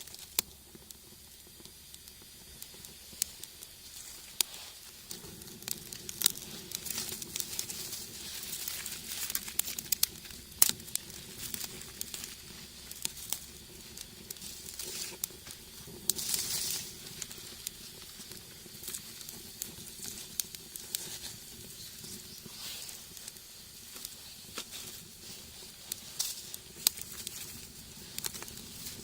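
Wood fire crackling and hissing in a rocket stove, with sharp pops throughout. A steady low hum joins about five seconds in.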